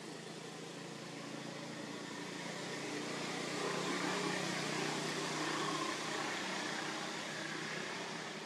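A motor vehicle passing: steady engine and road noise that grows louder around the middle and then fades.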